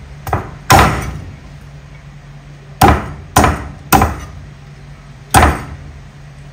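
Cleaver chopping a whole raw chicken on a thick round wooden chopping block: six sharp strikes, the first a light tap, then a hard chop, a pause of about two seconds, and four more hard chops.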